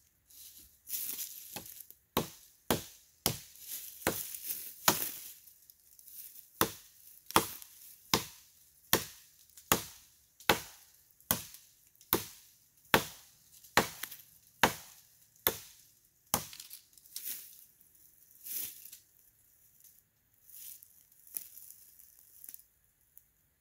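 Axe strokes chopping into wood, a steady run of sharp cracks about one every three-quarters of a second. Near the end the strokes come fewer and lighter.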